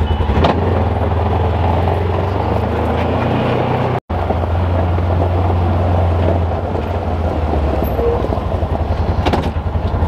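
Engine of a small vehicle running steadily as it is driven along, a low, even, pulsing drone.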